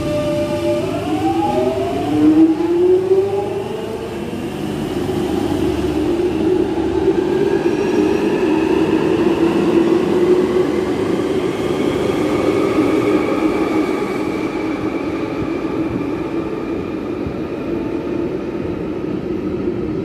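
London Underground 1996 Tube Stock train pulling out of a station: its traction motors give several whines rising in pitch over the first few seconds as it accelerates. A steady running hum and whine follow, fading a little near the end as it leaves.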